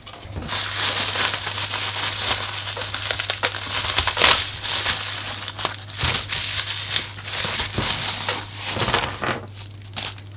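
Plastic bubble wrap crinkling and rustling as hands open a pouch and shake it out, a continuous crackle that thins out near the end.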